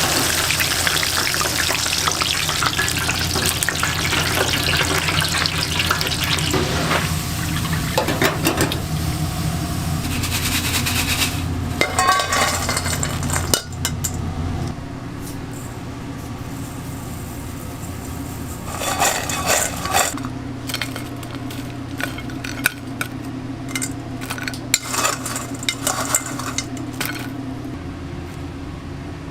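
Food sizzling loudly in a hot pan, with utensils clattering and scraping against cookware. The sizzle dies down about halfway through, leaving scattered clinks and scrapes over a steady low hum.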